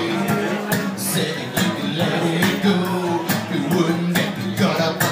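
A man singing while strumming an acoustic guitar, performed live.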